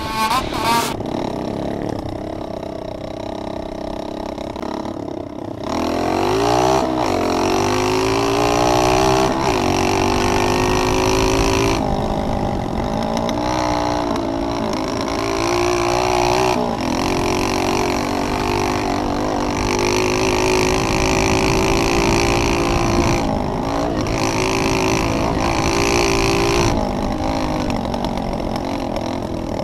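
Onboard sound of a pit bike's small engine, running low for the first few seconds, then revving up about five seconds in and rising and falling in pitch repeatedly as the throttle is opened and closed.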